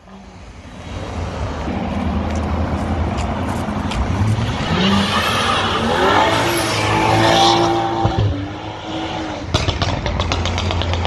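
Performance cars driving past, one accelerating hard, its engine note rising in pitch about four seconds in and holding high for a couple of seconds before fading. A low engine drone runs underneath, and a quick run of sharp cracks comes near the end.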